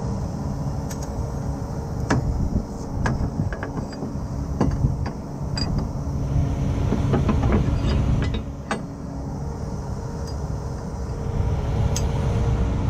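Medium-duty tow truck's engine running steadily while its hydraulic rear spades are folded down to brace the wrecker for a heavy winch pull, with scattered sharp metallic clicks and clanks over the hum.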